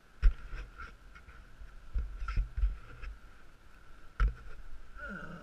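Knocks and scuffs of a lead climber's hands and shoes on the holds and wall, the loudest a sharp knock just after the start, with more around two and four seconds in. Near the end comes a brief grunt.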